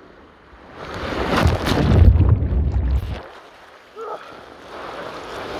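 Water-slide rider plunging out of the slide into the splash pool: water rushing and a big splash, loudest about two seconds in, then water churning. A brief voice sounds near the end.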